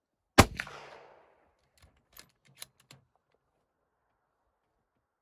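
A single rifle shot just under half a second in, with a brief echo, followed by a few faint clicks and clacks over the next two seconds.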